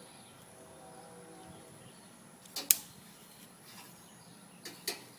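Grilling tools clicking lightly against the grill while the tuna steak is turned over, in two quick pairs, about two and a half seconds in and again near the end, over a faint steady hiss.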